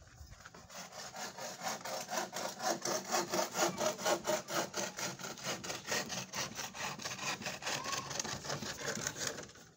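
Wood being sawn by hand in quick, even strokes, about four a second, stopping shortly before the end.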